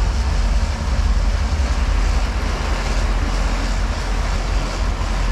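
Boat engine running steadily under way, a constant low rumble mixed with churning wake water and wind across the microphone.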